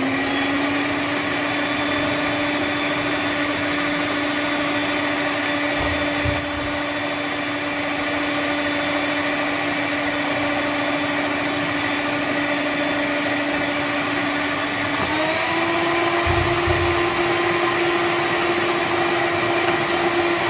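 Electric stand-and-hand mixer running, its twin beaters whisking cake batter in the bowl. It makes a steady motor whine that steps up slightly in pitch about fifteen seconds in.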